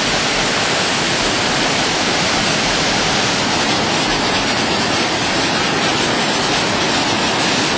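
Waterfall: water falling and rushing in a loud, steady, unbroken wash of noise.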